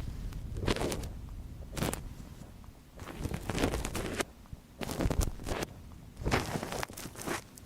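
Ear cleaning recorded close on a binaural microphone's ear: a tool scratching and rubbing, in about six short bursts with brief pauses between them.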